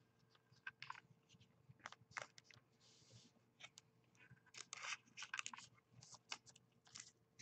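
Faint handling of trading cards being sorted and set down on a desk: scattered soft clicks and rustles, with a brief hiss about three seconds in.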